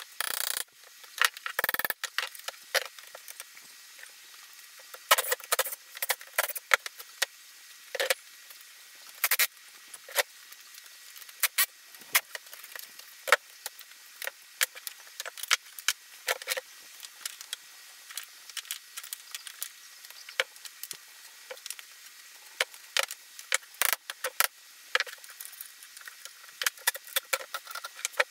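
Hammer striking a chisel and pry bar to break apart an old wooden chair: dozens of sharp, irregular knocks and taps, with scrapes as slats held by rusted screws are pried loose.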